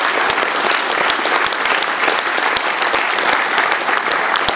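An audience applauding steadily, a dense patter of many hands clapping with sharper individual claps standing out.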